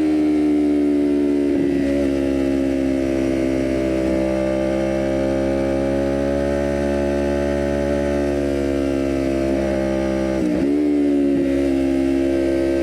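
Kawasaki Ninja 400 parallel-twin engine with a full cat-delete aftermarket exhaust, running at steady revs under way. About ten and a half seconds in, its pitch dips briefly and then picks back up.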